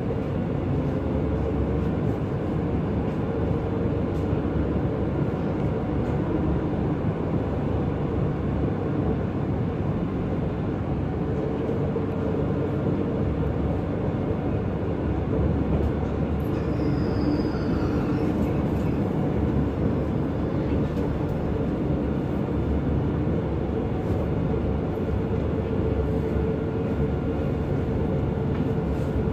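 Passenger train running, heard from inside the carriage: a steady rumble and hum, with a brief faint high squeal about halfway through.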